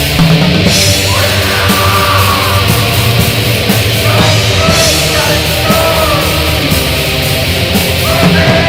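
Heavy metal recording: dense distorted band sound with drums, loud throughout.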